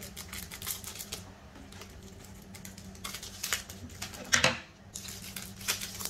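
Scissors snipping as squishy fidget toys are cut out: a run of small, irregular clicks, with one louder click about four and a half seconds in.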